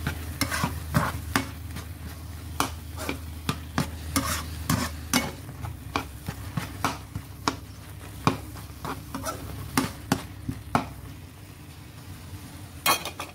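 A spoon stirring a thick sauce in a frying pan, scraping and knocking against the pan in quick irregular strokes, with the sauce sizzling underneath.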